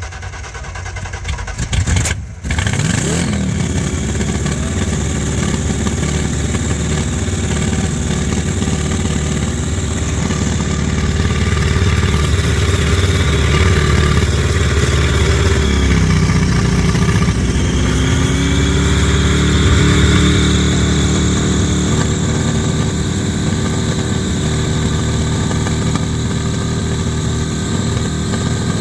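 Supercharged engine of a custom hot rod catching about two seconds in, then running loud and steady, its note shifting up and down about halfway through.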